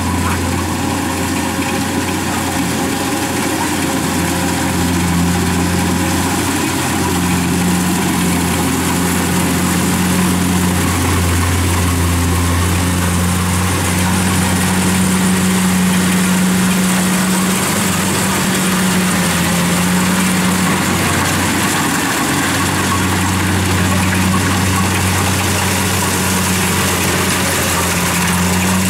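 Kubota rice combine harvester running steadily as it cuts rice, its diesel engine giving a constant low hum with a wash of mechanical noise from the machinery.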